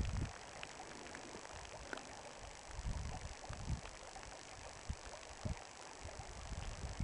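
Small hill stream running over stones into a loch, a steady, faint rush of water, with low gusts of wind buffeting the microphone and a few small clicks.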